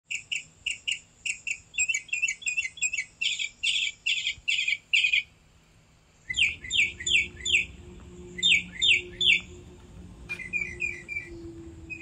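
Small songbirds chirping in quick repeated calls, about three a second. They break off for a moment about five seconds in, then resume over a faint steady hum, with a single sharp click about ten seconds in.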